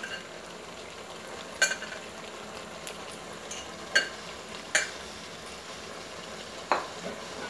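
Chicken, green peas and cashews sizzling in a metal pot on the stove, a steady hiss broken by four sharp clicks.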